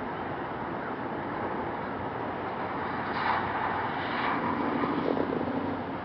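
Steady hum of distant city traffic, with a louder passage about three to five seconds in: two short harsh bursts followed by a low steady tone for about a second.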